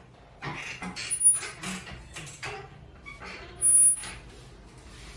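Flexion-distraction decompression table being worked: a run of short knocks and rustles from the moving table section, with two brief high-pitched squeaks, about a second in and again near four seconds in.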